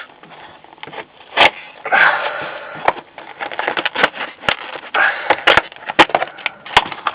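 Plastic packaging being cut open with a knife: many sharp clicks and snaps with short stretches of crackling plastic.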